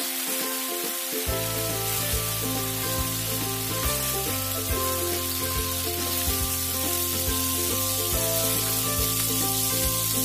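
Marinated chicken pieces sizzling in a hot pan whose water has cooked off, over background music whose bass enters about a second in.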